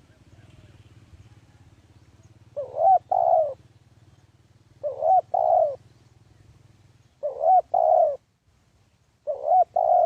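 Spotted dove cooing: four phrases about two seconds apart, each a short lead-in note followed by two louder, longer coos.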